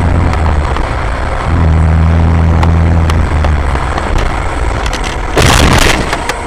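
A vehicle engine drones steadily under road noise, recorded from inside the vehicle; the drone fades and comes back. About five and a half seconds in there is a sudden loud burst of noise lasting about half a second.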